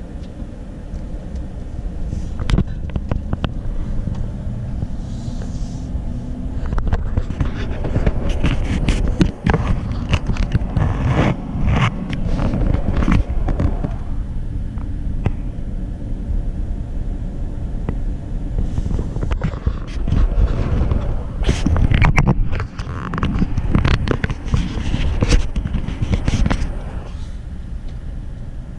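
Car driving, heard from inside the cabin: a steady low road rumble, with clusters of crackling and scraping from about 7 to 14 seconds in and again from about 19 to 27 seconds.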